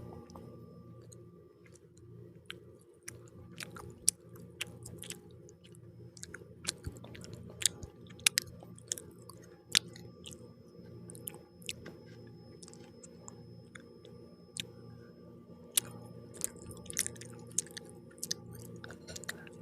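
Close-miked chewing of pizza, with many short sharp mouth clicks scattered through it, heaviest in the middle and near the end, over a steady low hum.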